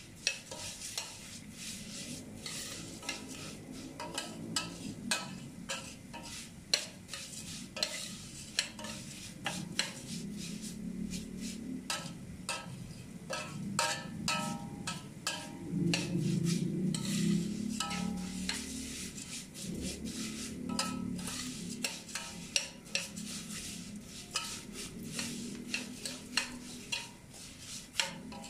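Metal spoon stirring and scraping vermicelli around a stainless steel pot, with many small clicks of the spoon against the pot and a light frying sizzle as the vermicelli browns.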